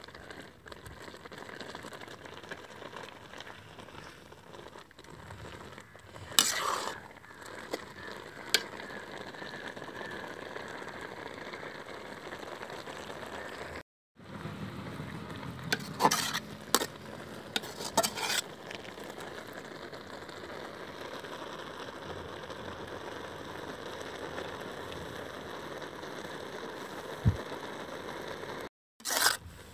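Grated beetroot simmering in milk in a large metal pot, a steady bubbling hiss, with a metal ladle clanking and scraping against the pot a few times.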